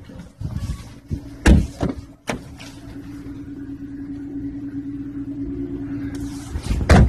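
Chrysler 200 car doors being handled and shut: a heavy thump about a second and a half in, a couple of smaller knocks, and the loudest slam near the end. A steady low hum runs between them.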